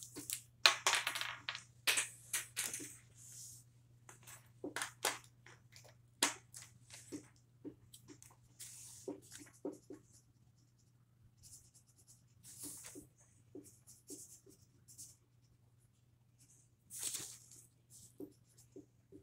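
Felt-tip marker scratching across paper in quick short strokes while colouring in a drawing. The strokes come in clusters with pauses between them, busiest in the first few seconds and again near the end.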